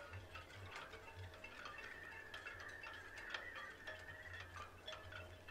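Faint chiming notes at several pitches, with light ticks scattered through. One higher tone is held for about three seconds in the middle.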